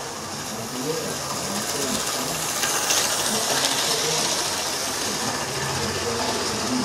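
Model train running along the track and passing close by: a steady mechanical running noise of its wheels on the rails and its motor, loudest about three seconds in.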